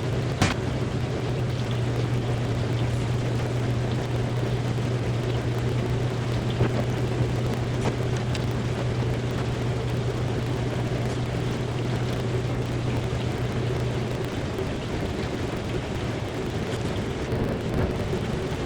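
Amana ADB1400AG dishwasher running its test wash cycle: a steady motor hum under the spray and splash of water inside the tub, with a single click about half a second in. The low hum fades about fourteen seconds in.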